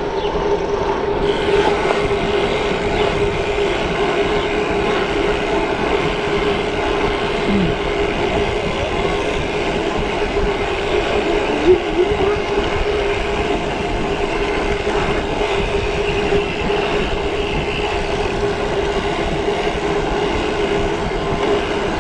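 Mountain bike rolling steadily along asphalt: a constant hum from the tyres on the road surface, with wind rushing over the microphone. One sharp knock about twelve seconds in.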